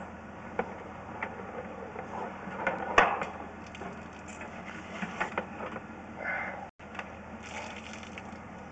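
Irregular clicks, knocks and scraping as a sewer inspection camera head and its push cable are worked into a 4-inch cast iron cleanout, with one sharp knock about three seconds in.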